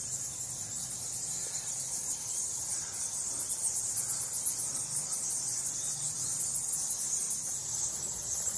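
Colony of cave-roosting bats giving a dense, continuous high-pitched twittering chatter of rapid squeaks.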